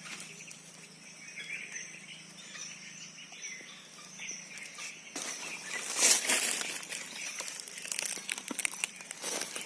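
Rustling and crackling in dry leaf litter and undergrowth, starting about five seconds in and loudest around six seconds. Faint bird chirps come before it.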